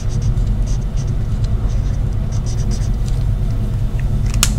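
Marker strokes scratching on paper as a word is written, in short quick strokes over the first two to three seconds, over a steady low hum; one sharp click near the end.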